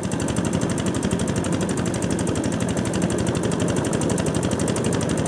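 Kubota DC688Q rice combine harvester, fitted with a DC95 engine, running steadily while harvesting, with a fast, even clatter from its engine and threshing gear.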